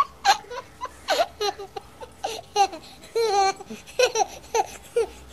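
High baby-like giggling and babbling in many short bursts with brief gaps between them.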